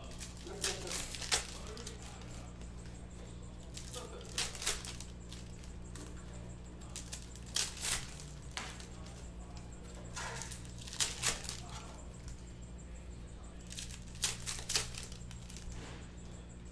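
Foil wrappers of 2013 Panini Select baseball card packs being torn open and crinkled by hand, in five short spells of crackling about every three to four seconds. A steady low hum runs underneath.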